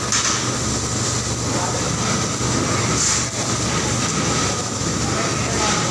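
Steady factory machinery noise with a constant hum, and a brief hiss about three seconds in.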